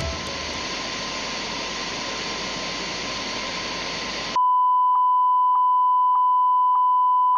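Television static hissing for about four seconds, then cutting off abruptly into a steady, loud test tone of the kind played with colour bars. The tone has a short pulse about every two-thirds of a second.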